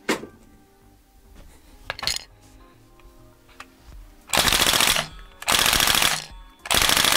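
Northeast Airsoft STEN Mk V gas blowback replica firing three short full-auto bursts, each about a second long, with two light clicks from handling the gun before the first burst.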